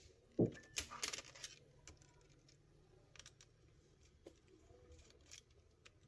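A low thump about half a second in, then a short clatter of light clicks and scraping and a few scattered ticks: a Dell Latitude E5470 laptop and small tools being handled on the bench while its back cover screws are removed.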